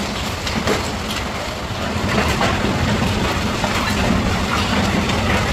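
Hailstorm: large hailstones and rain pelting down in a dense, continuous clatter of small impacts over a steady low rumble.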